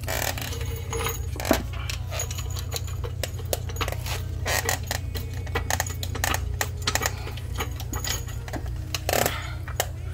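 Floor jack being set and pumped under the rear lower control arm, raising it to seat the coilover spring. Irregular metallic clicks and clanks sound over a steady low hum.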